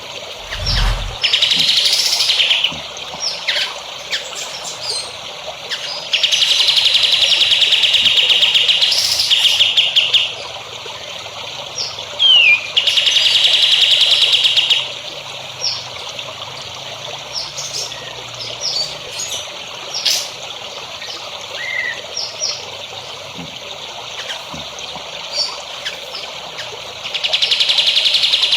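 Songbirds singing: several rapid trills of two to four seconds each, with short chirps and whistled notes between them, over a steady trickle of water. A low thump sounds about a second in.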